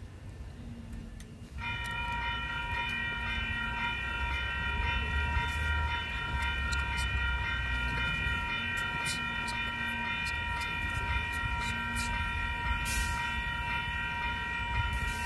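An approaching train's multi-chime horn starts about a second and a half in and is held as one long unbroken blast, over the low rumble of the train.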